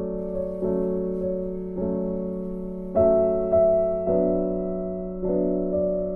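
Soft background piano music: notes and chords struck about once a second, each left to fade.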